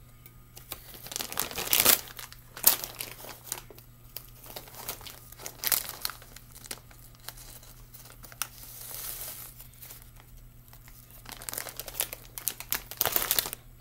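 Plastic packaging of nori seaweed sheets crinkling in repeated spells as a clear plastic bag is opened and handled and a sheet is taken out.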